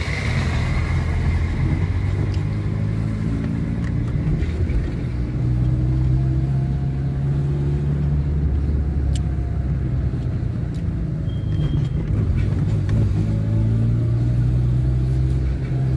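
Engine and road noise heard from inside a car driving slowly through city traffic, the engine note rising and falling a few times as it accelerates and eases off.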